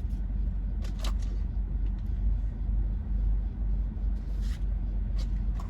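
Steady low background rumble, with a few short rustles and clicks of trading cards and their pack wrapper being handled, about a second in and again near the end.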